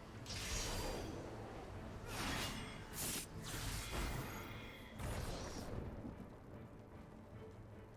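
Strong wind gusting in repeated surges, with a constant low rumble of wind buffeting the microphone; the gusts ease off in the last couple of seconds.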